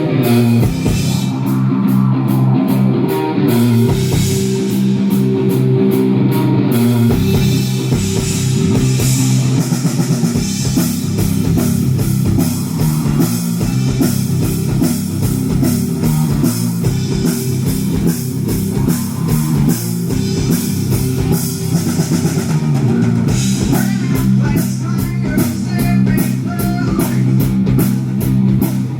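Progressive rock band playing live: guitars, bass and drum kit, with a steady beat. For the first several seconds the high end is chopped into a stop-start rhythm before the full band plays on.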